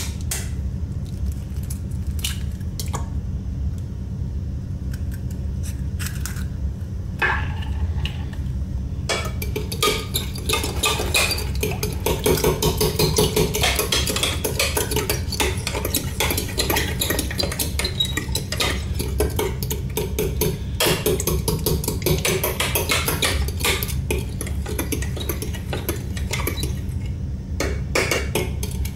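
A fork beating eggs in a glass jug: metal clinking and scraping against glass, a few scattered taps at first, then quick, continuous beating from about nine seconds in. A steady low hum runs underneath.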